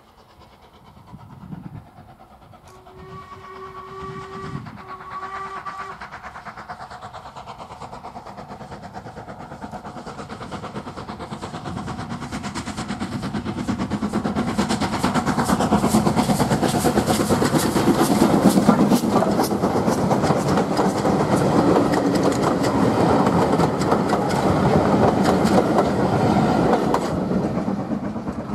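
Steam locomotive approaching and passing with a train. A few seconds in its steam whistle sounds one steady note for about three seconds. Then the chuffing exhaust beats and running noise grow steadily louder as it draws close, stay loud for a while, and fall away as it passes.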